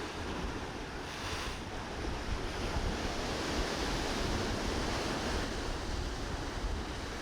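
Ocean surf washing ashore, with wind rumbling on the microphone.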